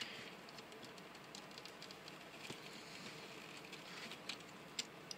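Faint, scattered clicks and light taps of a plastic action figure being handled and set standing on a tabletop, over a low steady hiss.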